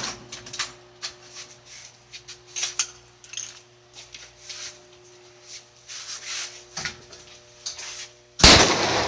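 Clicks and rustling of a shotgun being handled, then a single loud shotgun blast near the end that trails off.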